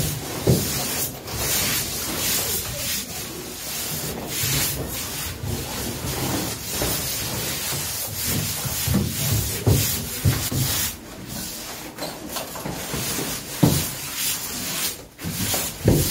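Wallpaper being rubbed and smoothed against a wall or ceiling with hand tools: a continuous run of rough, scratchy rubbing strokes, broken by a few short knocks.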